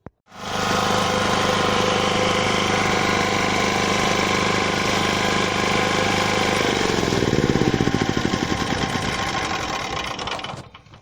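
Washing machine on its final spin, running at a steady high speed. About two-thirds of the way through the drum starts coasting down, with a pulsing hum that slows and falls in pitch before fading out near the end: the end of the wash cycle.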